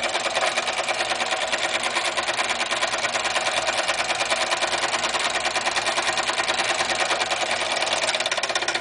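Single-cylinder German model steam engine running at speed on steam from its alcohol-fired boiler: a rapid, even chuffing and clatter that holds steady throughout.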